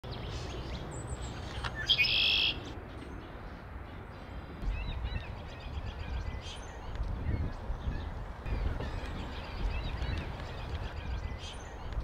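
A flock of common grackles calling from a treetop: many short chips and squeaks, with one loud, harsh, buzzy squeak about two seconds in, over a low background rumble.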